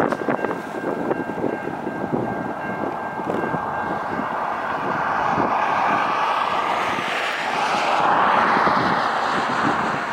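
Wind buffeting the microphone, with a distant rushing rumble that swells about halfway through and fades near the end.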